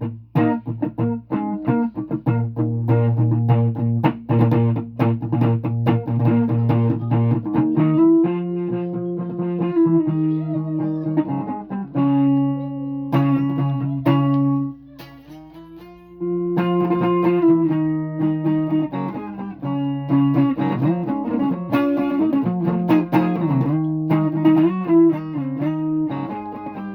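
Guitar being played: quick repeated picked notes for the first eight seconds, then slower, longer-held notes, with a brief drop in level about fifteen seconds in.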